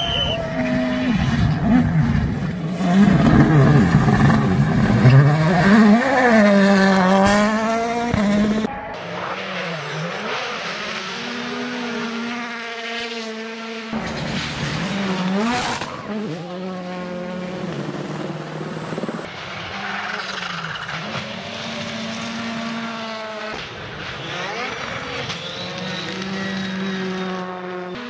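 Turbocharged four-cylinder World Rally Car engines at full throttle on gravel stages, in several passes one after another. The engine note climbs and drops with each gear change, and the loudest pass comes in the first eight seconds.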